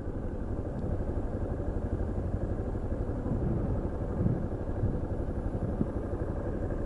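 Yamaha Serow 250's single-cylinder engine running steadily at low revs in slow traffic, a low rumble with no revving.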